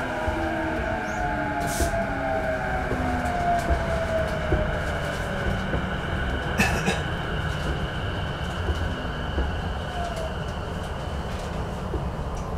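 Interior running sound of a JR East E233-6000 series electric train slowing for a station: the motor and inverter whine falls in pitch as the train brakes, over a steady rumble of wheels on rail. Two sharp clicks come through, the first about two seconds in and the second near the middle.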